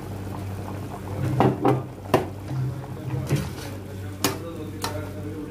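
Metal slotted spatula stirring curry in a steel pot, clinking and knocking against the pot's side about six times, over a steady low hum.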